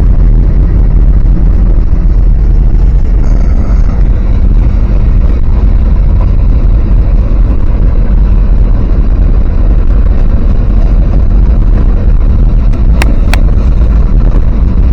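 Loud, steady low rumble of a moving vehicle, with two sharp clicks near the end.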